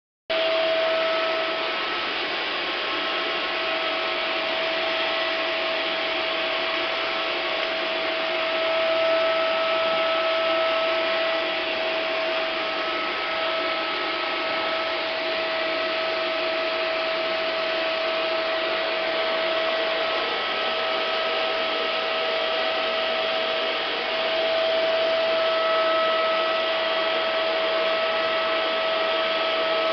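Vacuum cleaner running steadily, a constant rush of air with a steady whine, its nozzle being passed over a cat's fur.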